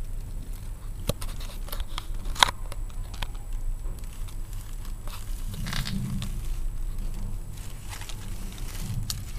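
Crackly rustling and handling noise as the phone is moved through plant leaves, with a few sharp clicks, the loudest about two and a half seconds in, over a steady low hum.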